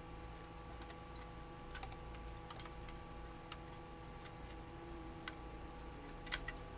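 Faint, scattered light clicks and taps of a metal hard-drive bracket being lifted out of a small PC case and handled, over a steady low hum.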